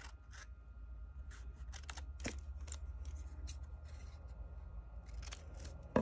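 Scissors cutting a small piece of taped paper: a quiet, irregular string of short, sharp snips.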